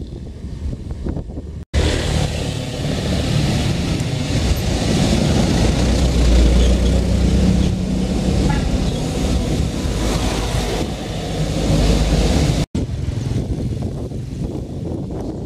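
Road vehicles passing: the engines of a small van and a motorcycle grow louder, peaking around the middle, between two abrupt cuts. Before the first cut and after the second, wind noise on the microphone of a moving motorcycle.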